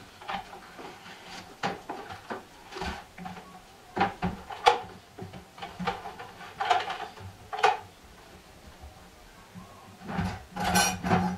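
Handling noise from an inverter welder and its cables being moved on a bench: a series of separate knocks and clicks with short rustles, and a longer rustle near the end.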